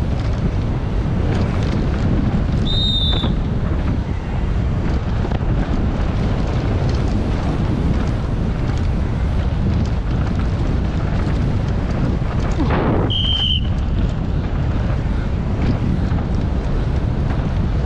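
Wind rushing over the microphone of a camera carried on a downhill mountain-bike run, a loud, steady noise. Two short high squeals cut through it, one about three seconds in and one about thirteen seconds in.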